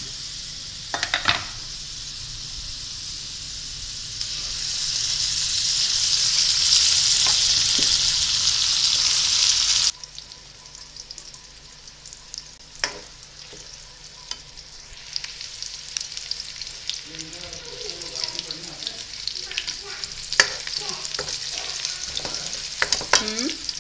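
Sliced onions sizzling in hot oil in an aluminium karahi. The sizzle swells loud over the first several seconds and cuts off suddenly about ten seconds in. After that it runs quieter, with a spoon clicking and scraping against the pan as the onions are stirred.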